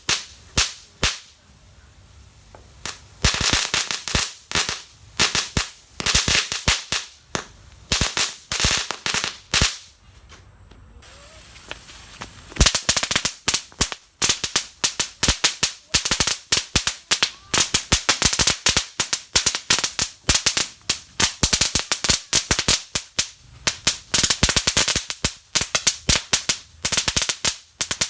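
Small firecrackers going off in rapid, irregular volleys of sharp cracks, the way a string of crackers burns through. The cracking pauses briefly about 2 s and 10 s in, then runs dense and nearly unbroken from about 12 seconds in.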